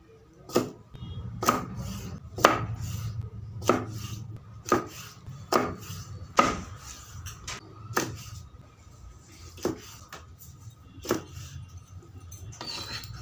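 Kitchen knife chopping cleaned fish into pieces on a wooden chopping board: about ten sharp knocks of the blade through the fish onto the wood, roughly one a second.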